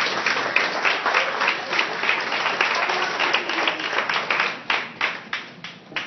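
Audience applauding at a curtain call. The clapping is dense at first and thins out over the last second or two to a few scattered claps.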